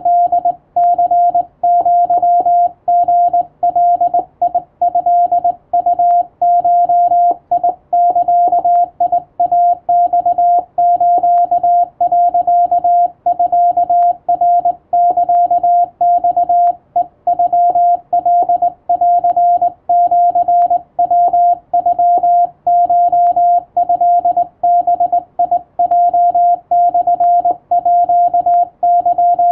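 Hand-sent Morse code: a steady electronic beep from the radio keyed on and off in dots and dashes by a straight telegraph key, at an even, practised speed. It is Japanese Wabun code spelling out a message of thanks.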